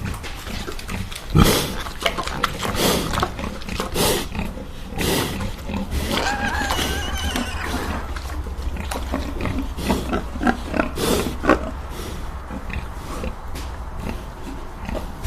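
Domestic pig grunting in many short, irregular grunts, one louder about a second and a half in, with a longer pitched squeal about six seconds in, over a steady low hum.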